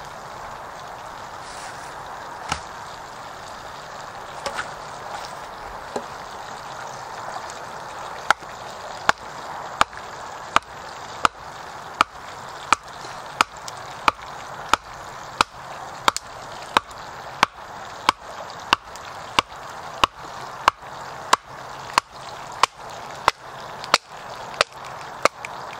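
Wooden baton knocking on the spine of an Ontario RAT-7 knife, driving it through a chicken joint on a wooden cutting board: a few scattered knocks, then from about eight seconds in a steady run of sharp knocks about one and a half a second. A steady sizzle from the frying pan runs underneath.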